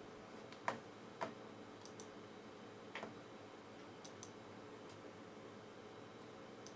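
Computer mouse button clicks while a file is picked and opened: three louder clicks in the first three seconds, then fainter ticks, some in quick pairs like double-clicks, over a faint steady hum.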